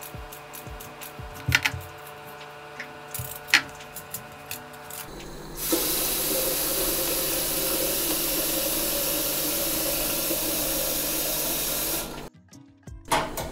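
A few light knocks and clicks, then a kitchen tap running water into a sink as a steady hiss for about six seconds, shut off abruptly.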